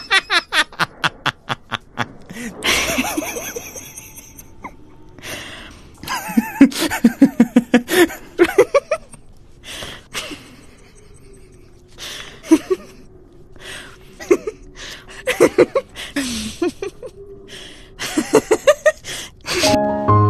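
Hearty laughter in several rounds of rapid ha-ha bursts, separated by short pauses.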